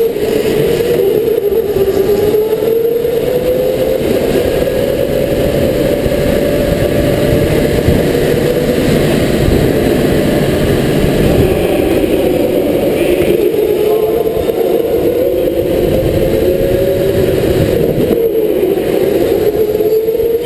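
An electric indoor race kart driven at speed: its motor whine rises and falls in pitch several times as it speeds up on the straights and slows into the corners, over a steady rough rushing noise.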